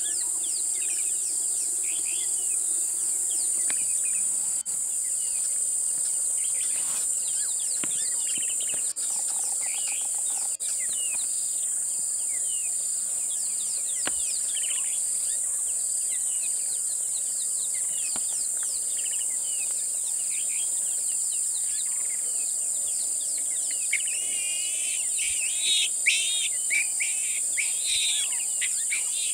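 Steady high-pitched insect chorus from the bush, with many birds chirping over it. The birdsong grows louder and busier near the end.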